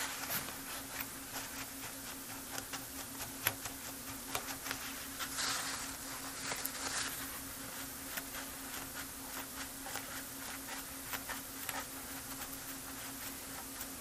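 Paper towel rubbing and scrubbing over the solder side of a circuit board, wiping degreaser off: irregular scratchy strokes, busiest around the middle. A faint steady hum runs underneath.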